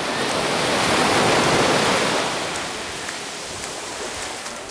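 Rushing water noise, swelling to its loudest about a second in and then easing off.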